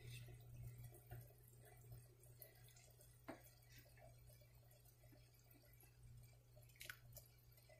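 Near silence: a low steady hum, with a few faint soft knocks from a wooden spoon stirring milk in a metal pan, two of them a little clearer.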